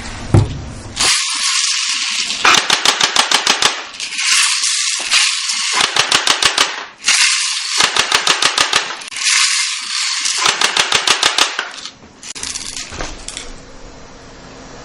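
Well's P90 airsoft electric gun (AEG) firing on full auto in four short bursts of rapid, evenly spaced clicks, with hissy noise between the bursts.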